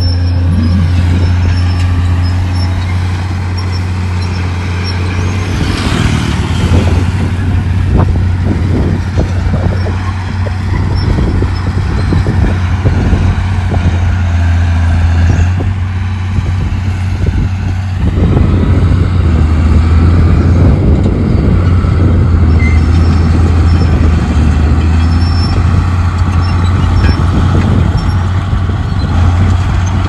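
Heavy diesel construction machinery running with a steady deep drone, with irregular clattering and knocking over it from about six seconds in.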